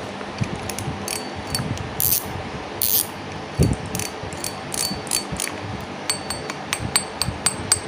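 Zorro Evo Power Handle spinning reel being worked by hand: scattered mechanical clicks and a few short swishes as the rotor and spool turn. About six seconds in, a regular run of sharp ringing clicks begins, about five a second.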